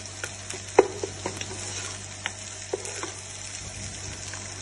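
Scrambled eggs frying in ghee in a non-stick pan, sizzling steadily while a wooden spatula stirs them and knocks against the pan in irregular clicks, the sharpest about a second in.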